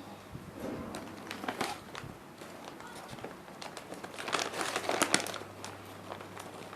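Plastic crinkling and crackling as packaging is handled, in irregular bursts with sharp clicks, loudest about four to five seconds in.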